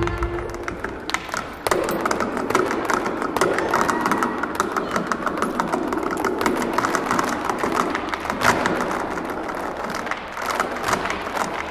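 Rapid, irregular taps and stamps of Irish step dancers' hard shoes on a wooden stage floor, without music, over a steady crowd murmur that swells about two seconds in.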